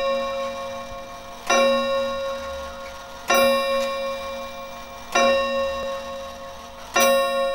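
A clock's bell striking the same note over and over, about every two seconds, each stroke ringing and fading before the next; four strokes.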